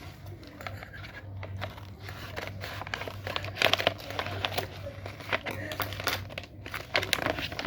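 Crinkling and rustling of packaging being handled and opened, with irregular sharp crackles, the loudest about three and a half seconds in.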